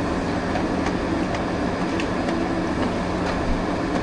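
Steady mechanical hum with a low drone and a few faint ticks, the noise of running engines or a motor.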